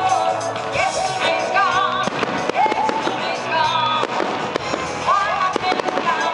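Aerial fireworks bursting and crackling repeatedly, under loud music that runs throughout.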